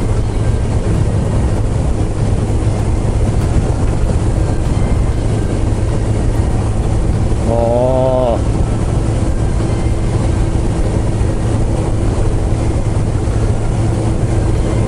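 Suzuki GSX-R1000 inline-four sport bike engine running at a steady cruise, mixed with wind rushing over the bike-mounted microphone. About halfway through there is a brief wavering tone lasting under a second.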